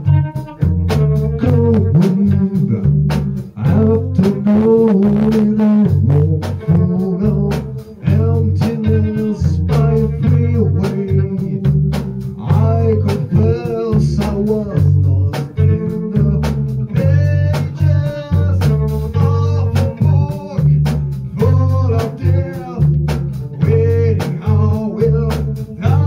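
A rock band playing live: electric bass guitar and drum kit keeping a steady beat, with a man singing into a microphone in places.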